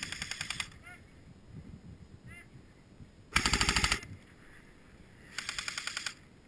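Airsoft rifles firing full-auto in three short bursts of rapid shots, about a second in, a little past the middle, and near the end; the middle burst is the loudest.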